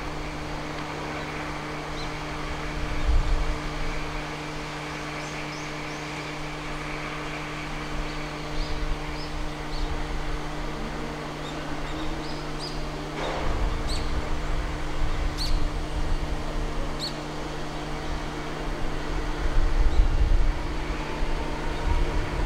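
Steady hum of shipyard machinery holding several fixed pitches, with a few short bird chirps and low rumbles that come and go, the loudest a couple of seconds before the end.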